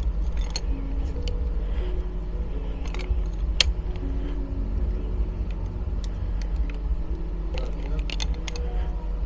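Metal spanner clicking and scraping on a car shock absorber's top nut, a few irregular clicks as the nut is worked loose bit by bit, over a steady low rumble.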